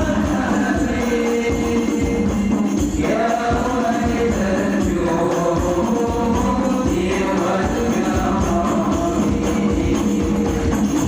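Shalawat, Islamic devotional singing, with a drum and tambourine accompaniment.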